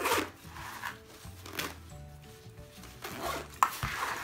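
A fabric BUBM zippered case full of pens and markers being handled and folded shut: a few soft rustles and a light knock, over quiet background music.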